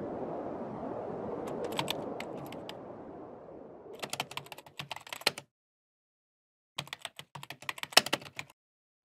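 Keyboard typing sound effect: two quick runs of key clacks, about four seconds in and again about seven seconds in, with a few stray clicks before them. Under the first half, a low rushing outdoor ambience fades away.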